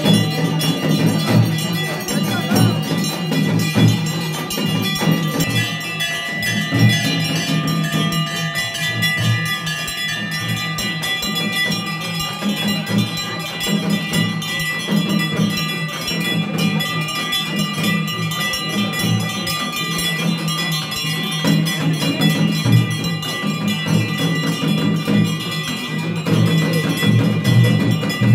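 Temple bells ringing steadily and continuously, with low drumbeats underneath.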